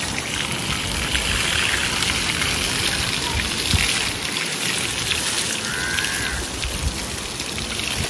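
Water from a garden hose spraying steadily onto a wet ostrich and pattering and splashing off its feathers onto the wet grass.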